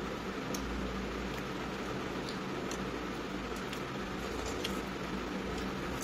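Steady low hum with a faint hiss, and a few faint short clicks scattered through it.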